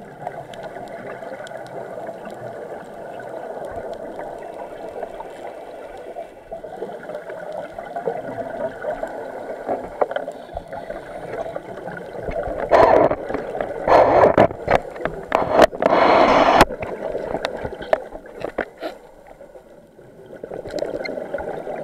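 Scuba diver's regulator breathing heard underwater: a steady rushing noise, then several loud bursts of exhaled bubbles about two thirds of the way through.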